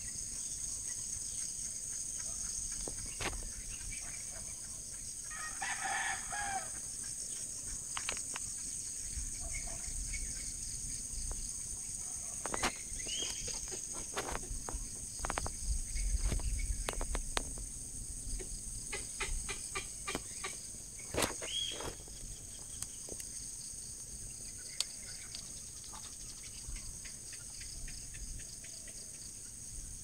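A steady, high-pitched drone of insects, with a rooster crowing once about six seconds in. Two short rising calls come later, and scattered clicks and knocks run through it.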